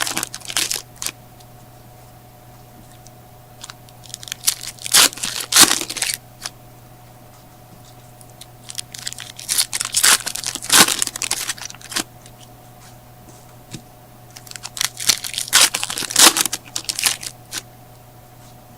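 Baseball card packs being torn open and their wrappers crinkled, in four separate bursts of tearing and rustling a few seconds apart, over a steady low hum.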